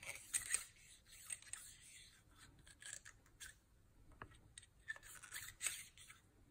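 Faint, irregular scratchy rubbing strokes of a cleaning tool scrubbed back and forth through a Glock pistol barrel to clear powder residue.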